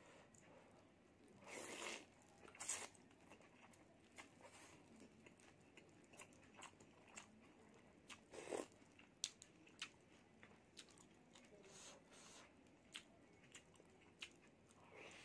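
Close-miked eating sounds of instant noodles in spicy broth: a short slurp about one and a half seconds in, another sip from a wooden spoon about eight seconds in, and soft wet chewing and mouth clicks between.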